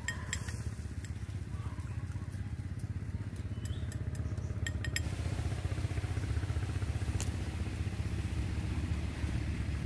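A steady low rumble that grows louder about halfway through, with a few faint light clicks of chopsticks against a small ceramic bowl of basting seasoning.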